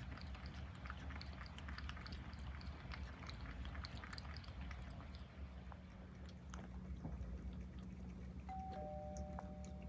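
Cat lapping water: a faint run of small quick licks over a low steady hum. Near the end a two-note chime sounds, higher note then lower, and holds.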